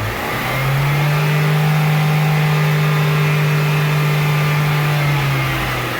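2015 Chevrolet Onix engine revved and held steady at raised revs for about four and a half seconds, then let back down near the end. It runs free of the loud noise it had; the mechanic declares the noise gone after the new box was fitted.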